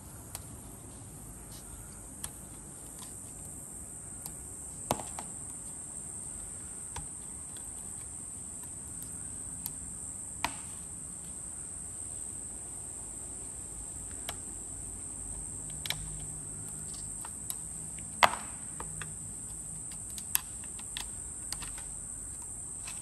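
A steady high-pitched insect drone, with irregular sharp clicks and ticks of a metal pick against the plastic intake manifold as hardened rubber port gaskets are pried out of it; the loudest click comes about 18 seconds in.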